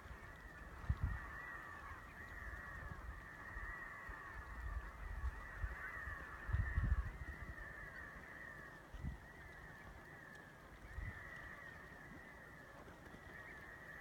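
A flock of redhead ducks giving many short, repeated beeping calls that overlap one another continuously. A few low thumps break in, the loudest about halfway through.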